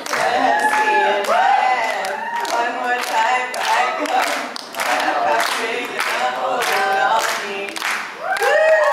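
Several voices singing a song unaccompanied, with hands clapping along in time, about two claps a second; the singing swells louder near the end.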